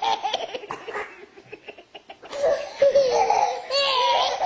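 Baby laughing hard while being tickled: breathy bursts of laughter, a short pause, then loud, high squealing laughs from about two seconds in.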